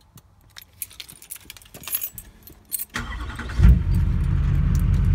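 Keys jingling and a remote-start fob being clicked. About three seconds in, the 2004.5 GMC Sierra's LLY Duramax 6.6-litre V8 turbodiesel starts by remote start: a short crank, a loud catch, then a steady idle.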